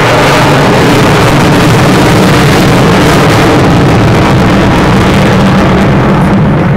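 Avro Vulcan bomber's four Rolls-Royce Olympus turbojets at high power: a loud, steady jet roar carrying the Vulcan's characteristic howl.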